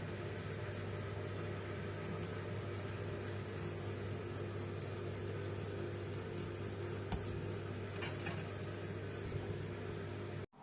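A steady low machine hum, as from a running motor or fan, with a few faint clicks and knocks over it.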